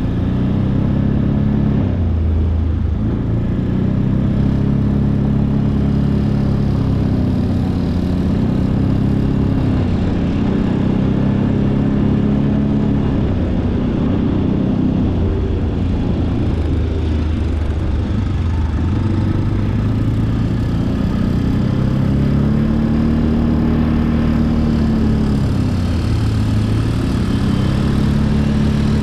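ATV engine running while riding, its pitch rising and falling several times as the throttle opens and eases off.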